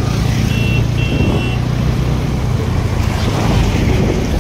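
Vehicle engine running with road and wind noise while driving along a highway; about half a second in, a horn beeps twice briefly.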